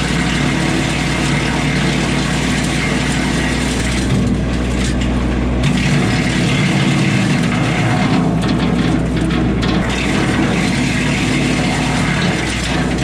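4-inch BECO PTO wood chipper run by a Kubota LX2610 compact tractor, steadily chewing through limbs with a rattling, grinding clatter over the tractor's engine hum.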